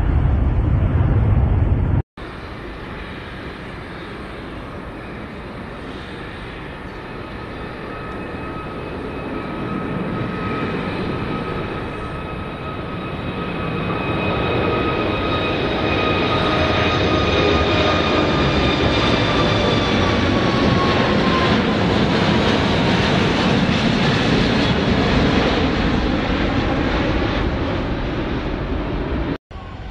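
Airbus A380 taking off and climbing past, its four jet engines at take-off thrust: a steady jet roar with high whining tones that slowly drop in pitch as it passes, growing louder about halfway through. A deeper rumble from another departing airliner opens the sound and cuts off abruptly about two seconds in.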